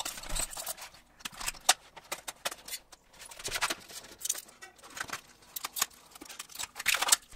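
High-temperature tape being pulled off its roll in short, irregular pulls and wrapped around a block of four prismatic LiFePO4 battery cells, with pauses between pulls.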